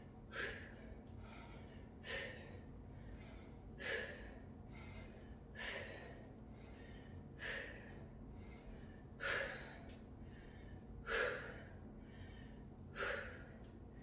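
A woman's sharp breaths out, one short puff about every two seconds, timed to each rep of plié squats.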